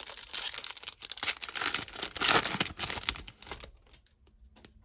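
Wrapper of a sealed baseball card pack being torn open and crinkled: a dense crackle lasting about three and a half seconds, loudest past the middle, then stopping.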